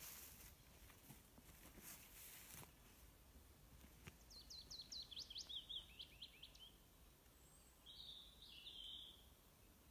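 Faint birdsong: a small songbird sings a quick run of about a dozen notes that step down in pitch about four seconds in, then gives two or three short notes near the end. A faint rustle comes in the first couple of seconds.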